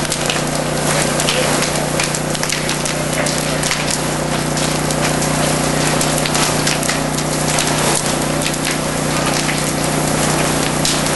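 Garage fire burning fiercely: a dense, irregular crackle of sharp snaps and pops over a steady rushing hiss, with a constant low hum underneath.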